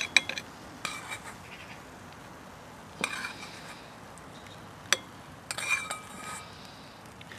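A metal spoon clinking and scraping against a wok and a china plate while fried bananas are served, a handful of separate knocks spread through, some with a short metallic ring.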